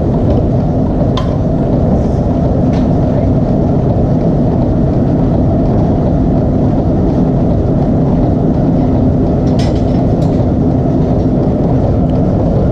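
Steady, loud machinery drone with a constant hum, broken by a few sharp metallic clicks.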